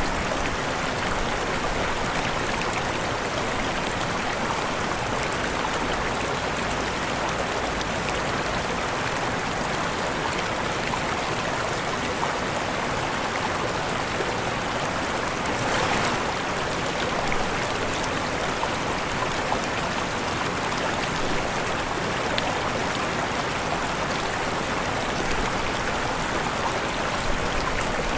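Waterfall rushing: a steady, even wash of falling water, swelling briefly about halfway through.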